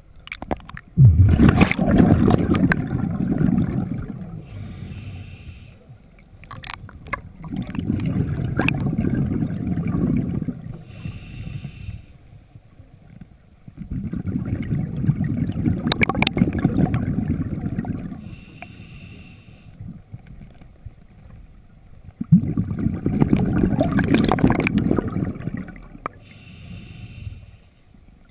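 Underwater breathing of a scuba diver: four long bursts of exhaled bubbles rumbling out of the regulator about seven seconds apart, with a fainter hiss of inhalation between them.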